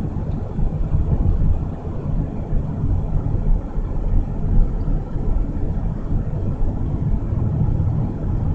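Steady low rumble of a car driving along a road, heard from inside the cabin: tyre, road and engine noise.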